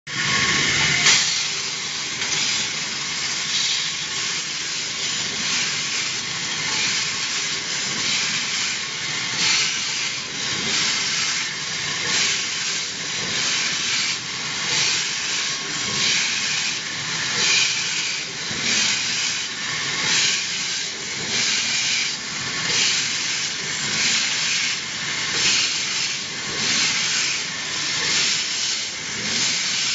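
Wide-belt metal sanding machine running, its abrasive belt grinding over perforated metal plates as they feed through: a steady, loud hiss that pulses regularly, a little faster than once a second.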